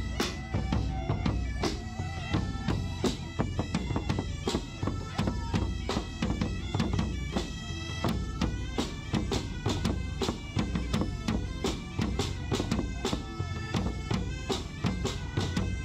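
Bagpipe music with drums: a held drone under the melody, over a steady drum beat.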